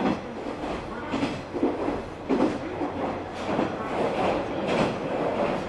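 KiHa 120 diesel railcar running, heard from inside the car: a rumbling rail noise with repeated short knocks as the wheels cross rail joints, about one every half second to a second.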